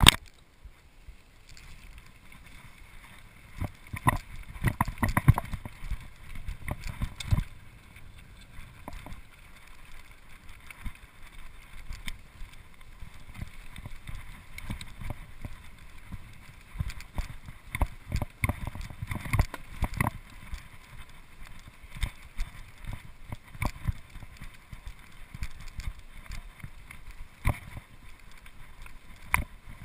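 Mountain bike ridden over a rough, stony grass trail: steady rolling rumble with the frame and parts rattling and knocking over rocks and bumps, heaviest about four to seven seconds in and again around eighteen to twenty seconds.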